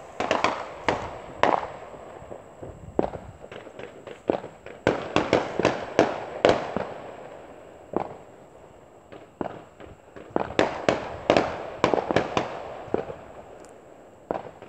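Fireworks going off: many sharp bangs in quick clusters, with a quieter lull past the middle, then another run of bangs.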